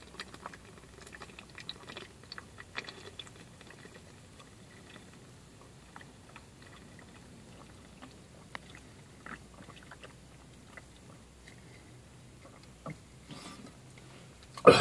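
A person gulping down a canned energy drink in one long chug: faint, irregular swallows and small wet mouth clicks. At the very end, a sudden loud exhale as the can comes away.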